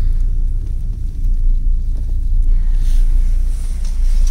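Steady low rumble inside a moving aerial ropeway cabin as it travels along its cable.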